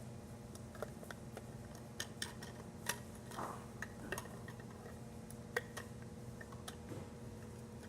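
Plastic Lego bricks and plates clicking and tapping as they are handled and pressed together: a dozen or so scattered small clicks, over a faint steady hum.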